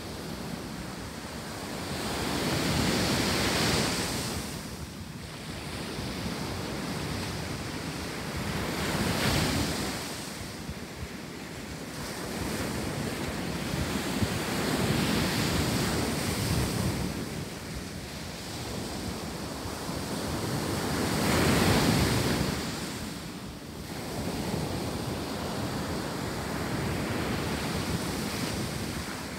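Ocean surf breaking on a sandy beach, each wave swelling and fading about every six seconds, with wind buffeting the microphone.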